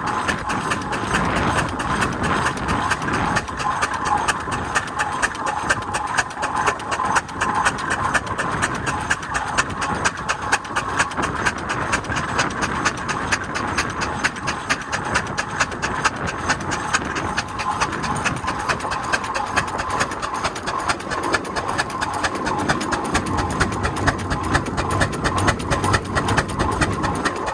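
1908 Marshall 7NHP steam traction engine running steadily, a fast, even clatter of beats.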